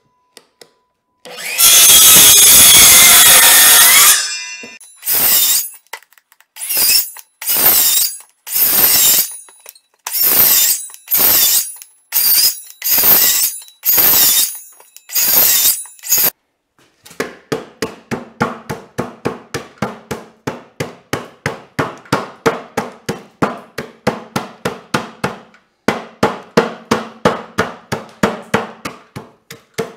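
Cordless circular saw, blade set to half the board's depth, cutting kerfs across a pressure-treated 2x6 for a half-lap joint: one longer cut, then about ten short cuts in quick succession. Then a hammer knocks out the waste slivers between the kerfs in a fast, regular run of several blows a second, pausing briefly near the end.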